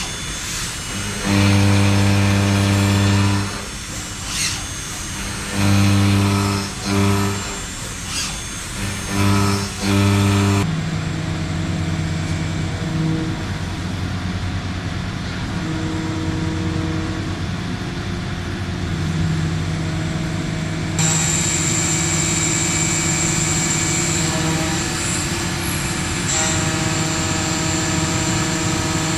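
WFL M60 MillTurn CNC machine running while machining a crankshaft: steady machining noise, with a deep motor hum that starts and stops several times in the first third. The sound changes abruptly twice, as if at cuts between shots.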